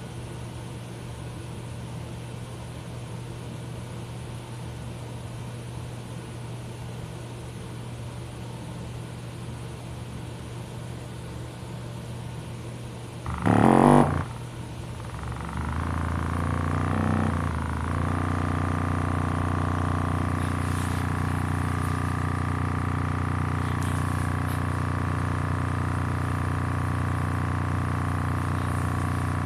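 A 6.5-inch midbass speaker driver, unmounted in free air, playing a steady low bass tone. About 14 seconds in there is a brief loud burst, and from about 16 seconds the bass plays louder, with more overtones, until the end.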